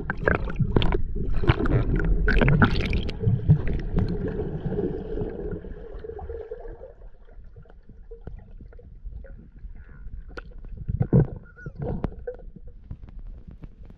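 Underwater sound picked up by a submerged camera: water gurgling and churning with clicks and knocks for the first few seconds, then quieter with scattered clicks and a knock about eleven seconds in.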